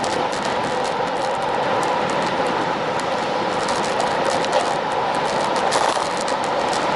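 Road bike riding noise heard through a bike-mounted action camera: a steady rush of wind and tyre rumble, with frequent light ticks and rattles.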